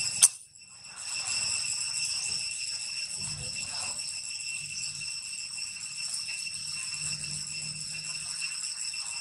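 A steady, high-pitched insect drone of the kind cicadas make, holding one even pitch with overtones throughout. A sharp click comes just after the start, and the drone briefly drops out for under a second after it.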